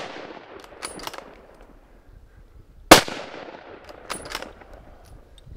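A single loud rifle shot about three seconds in, with a long fading echo, fired at a crocodile. Short clusters of sharp clicks come about a second in and again about four seconds in.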